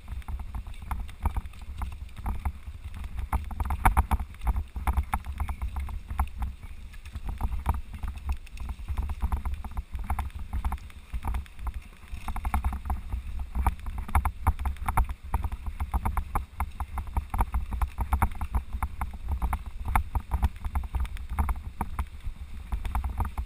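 Mountain bike riding over a rough dirt trail: a dense, uneven clatter of the bike rattling over bumps and roots, over a steady low rumble.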